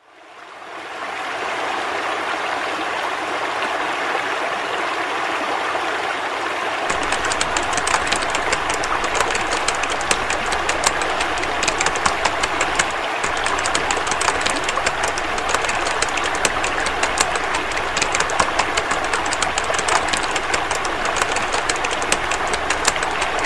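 Shower water running: a steady rushing spray that fades in at the start. About seven seconds in, a low rumble and fine crackling join it.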